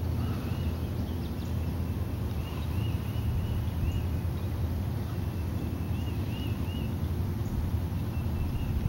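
A bird chirps repeatedly in short rise-and-fall notes, in twos and threes, over a steady low rumble.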